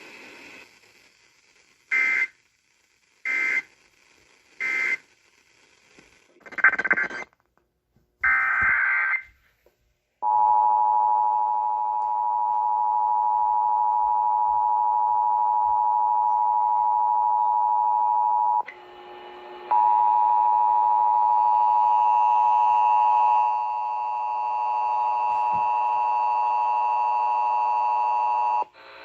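Emergency Alert System signalling: a string of short SAME digital data bursts, five in all, then the two-tone EAS attention signal, a steady harsh chord that runs about eight seconds, breaks off briefly, and sounds again for about nine seconds.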